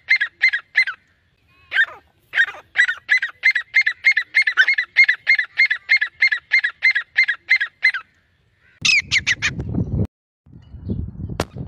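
Grey francolin calling: a long run of sharp repeated notes, about four a second, broken by a short pause. Near the end a few higher notes ring out over a low rumble.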